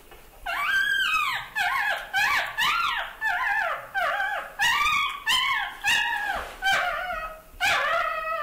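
Newborn puppies crying: a string of high-pitched squealing whines that rise and fall, one after another about every half second.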